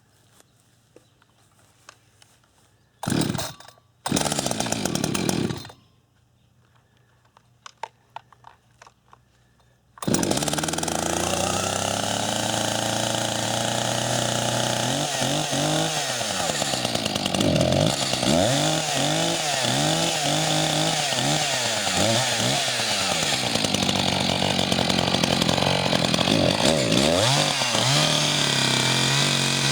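Echo CS-590 two-stroke chainsaw being started: two short bursts of engine noise a few seconds apart, then about ten seconds in it catches and keeps running, its pitch rising and falling again and again as the throttle is worked.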